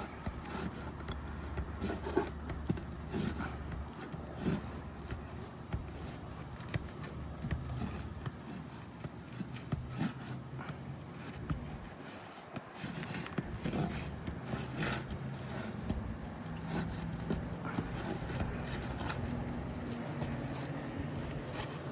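Irregular scraping, prying and light tapping of a shingle ripper and roofing hammer working under an asphalt shingle to free its nails, over a low steady background hum.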